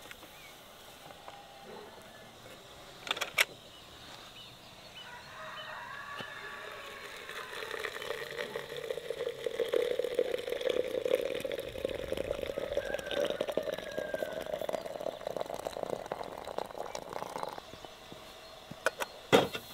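Hot water poured into a glass teapot: a steady splashing stream whose pitch rises slowly as the pot fills, stopping shortly before the end. Two sharp knocks, one about three seconds in and one just before the end.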